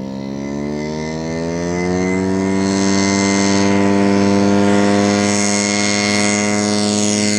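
Mini-Max ultralight's engine and propeller at full throttle for takeoff: the engine note rises over the first two seconds as the throttle opens, then holds steady and grows louder as the plane approaches.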